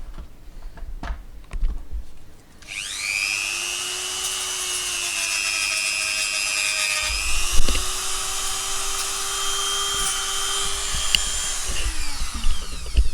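Handheld power tool motor, spinning up about two and a half seconds in, running steadily at high speed, then winding down in pitch near the end. A sharp knock sounds about halfway through, with light handling clicks before the motor starts.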